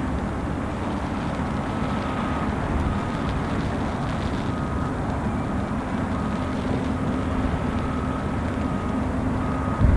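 Steady low rumble of ship engines and machinery, with a faint hum and a higher tone that comes and goes, over heavy rain.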